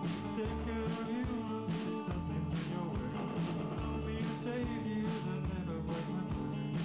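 A rock band playing live: electric guitars, bass guitar and drums, with a steady beat of drum and cymbal hits about twice a second.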